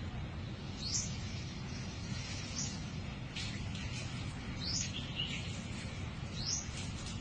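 A bird chirping: four short, rising chirps spaced about two seconds apart, over a steady low rumble.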